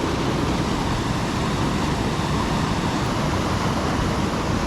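Steady rush of high water pouring through a flooded river spillway, an even, unbroken noise.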